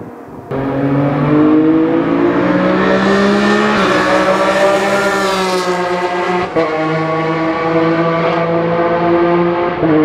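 Racing car engine accelerating hard. Its pitch climbs, then drops sharply at gear changes about four and six and a half seconds in, and after that it runs at a steady note.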